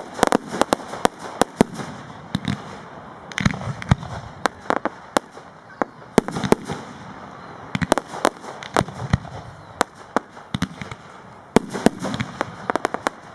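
Aerial fireworks display: sharp bangs and pops of shells and comets firing and bursting, coming in irregular rapid clusters with short lulls between them.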